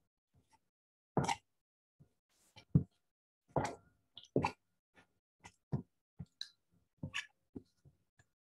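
A spatula chopping and stirring chunks of wet clay soaking in water in a plastic container: irregular wet knocks and plops, a dozen or so, with short pauses between.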